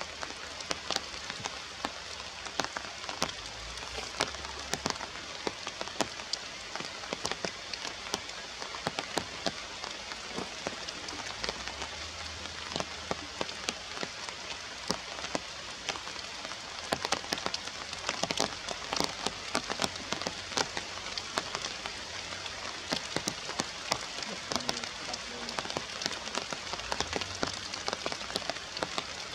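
Steady rain falling, an even hiss dotted all through with many sharp drop hits.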